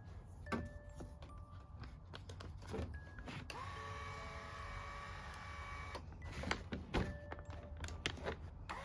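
Lourdes AX-HL168 massage cushion's roller drive motor and gears starting up about a third of the way in, with a short rising whine that settles into a steady whir. Scattered clicks and knocks of the unit being handled come before and around it.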